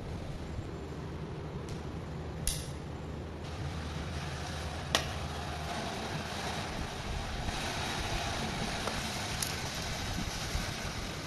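A few sharp clicks from work on a bicycle brake lever, the loudest about five seconds in, over a steady low rumble and hiss.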